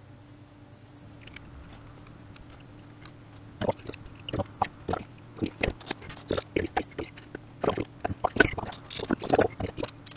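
Irregular sharp plastic clicks and knocks from an automotive fuse box module and its circuit board being handled and set down on a workbench, starting about three and a half seconds in, over a faint steady hum.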